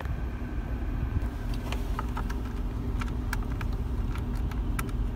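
Small sharp metal clicks and ticks, a screwdriver working on the dashboard display's mounting screws. They start about a second in and come irregularly, several to the second, over a steady low rumble.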